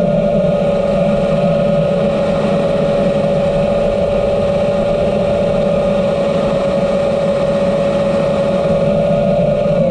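Electric motors of a flying drone running at a steady cruise: one constant high whine over a rush of air and motor noise.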